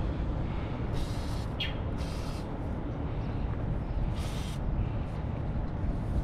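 Three short hisses of an aerosol spray can spraying lubricant onto the rusted lower bolt of a semi truck's rear shock absorber: about a second in, about two seconds in, and just after four seconds. A steady low rumble runs underneath.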